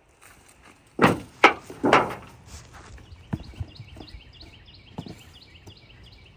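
Three heavy wooden thumps about half a second apart, then a few lighter knocks, as a big oak log is shifted and turned over. A bird sings a quick repeated chirp in the background from about halfway on.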